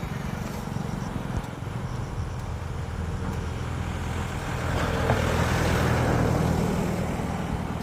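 A motor vehicle's engine running steadily, with a rush of noise that grows louder for a couple of seconds past the middle and then eases off.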